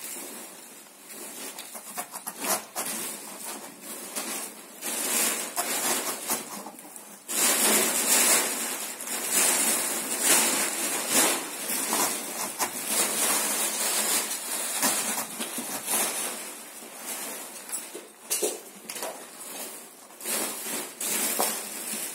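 Irregular rustling and crinkling of something being handled, louder and sharper from about seven seconds in.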